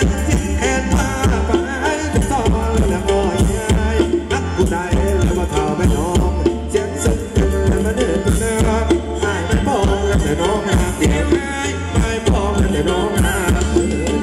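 Live Thai ramwong dance music from a band over a stage PA, with a steady drum beat under melody instruments.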